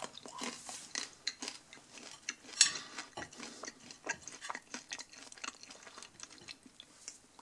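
Crisp pizza crust being chewed: irregular crunching crackles, with one sharper crack about two and a half seconds in.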